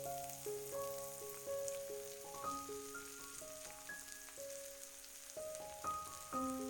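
Food sizzling in a frying pan, a steady crackling hiss, under soft melodic background music of single held notes changing step by step.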